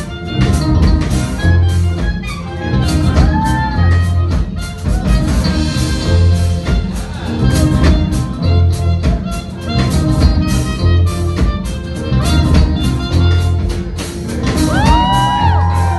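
Live band with saxophones, keyboard, bass and drums playing a song, the bass repeating one short note over the beat. A bending horn phrase comes in near the end.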